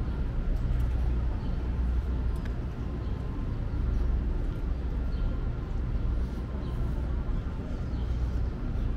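Outdoor city street ambience: a steady low rumble with faint short high chirps now and then.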